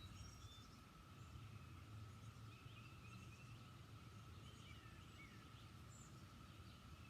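Near silence, with faint scattered bird chirps and a faint steady high tone in the background.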